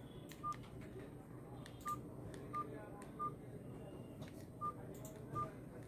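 Bengal Royal 4 feature phone's keypad beeps: six short single-pitch tones, one for each key press, spaced unevenly as the menu is navigated, with faint button clicks.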